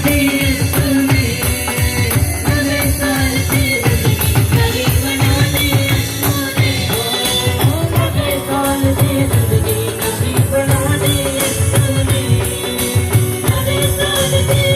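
Upbeat Punjabi worship music played live: a steady beat with jingling tambourine and sustained keyboard notes, an instrumental passage between sung lines.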